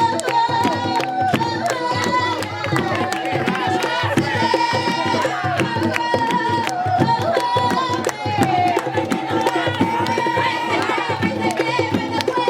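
Tamborito: Panamanian folk hand drums played in a fast, dense rhythm, with voices singing over them.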